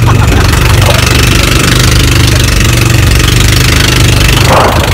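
Outrigger fishing boat's engine running steadily under way, a low even hum with a loud hiss over it. A short brighter sound cuts in about four and a half seconds in.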